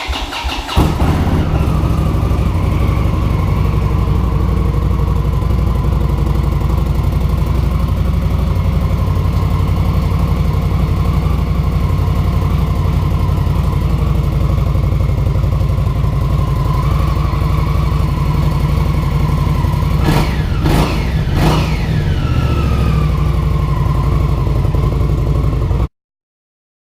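2016 Indian Scout's V-twin engine through its stock factory exhaust, starting up and settling into a steady idle. It is revved twice about twenty seconds in and then stops abruptly.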